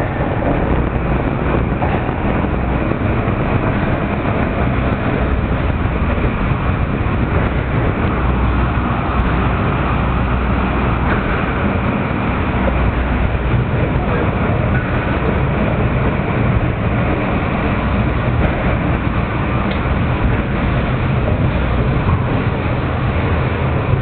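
Takao cable car, a funicular, running uphill through a tunnel: a steady, loud rumble of the car on its rails.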